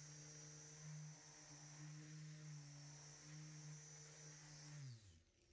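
Faint, steady hum of an electric paint polisher's motor spinning its pad on the car's paint, with a thin high whine on top; near the end it is switched off and the motor winds down, falling in pitch.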